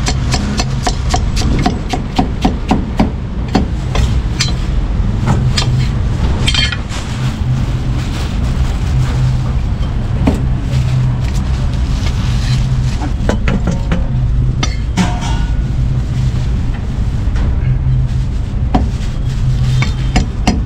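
A cleaver chopping vegetables on a thick wooden chopping block: quick runs of knocks in the first several seconds, then sparser strokes. A steady low hum runs underneath.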